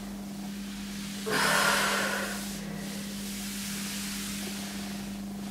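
A cotton towel sliding under a hand across a laminate floor: one swish of about a second, starting about a second in, as the towel is drawn back in. A steady low hum runs underneath.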